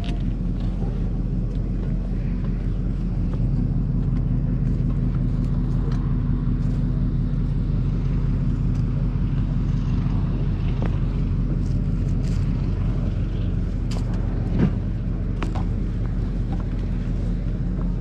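A car running steadily, with engine hum and road noise, a little louder for several seconds near the start. One short knock sounds about two-thirds of the way through.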